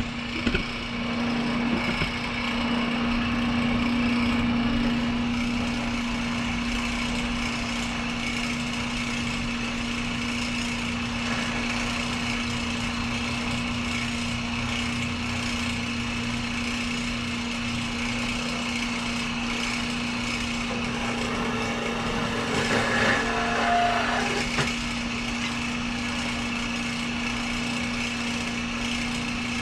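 Steady hum of running shop machinery, one held low tone with a hiss over it. About three-quarters of the way through there is a brief louder burst of metal handling noise.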